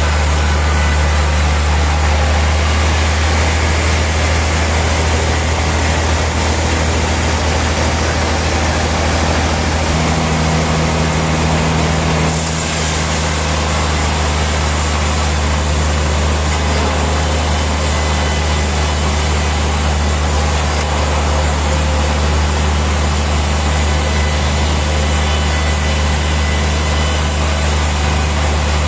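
Heavy machinery running steadily: a deep, constant hum under a wide hiss, with no breaks.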